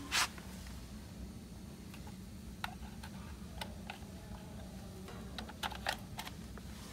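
Plastic clicks and knocks of a three-pin mains plug being handled and pushed into a power strip socket: a sharp click at the start, a few scattered ticks, then a quick run of clicks about five to six seconds in as the plug goes home. A steady low hum runs underneath.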